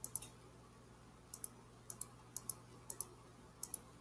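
Computer mouse button clicking faintly, about six quick clicks spaced unevenly, each a close pair of ticks.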